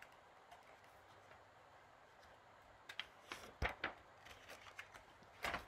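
Pages of a picture book being turned by hand: a few short paper rustles and flaps about three seconds in and another near the end, with quiet room tone before them.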